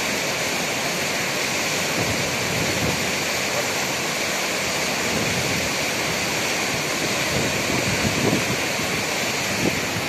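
Steady rushing roar of the Parvati river's fast, silty rapids.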